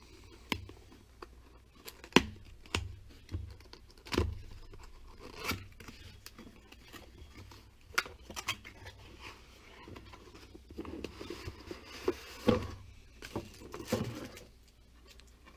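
A cardboard tablet box being opened by hand: scattered sharp clicks and scrapes of the cardboard flaps and packaging, with a stretch of rustling and scraping about eleven seconds in.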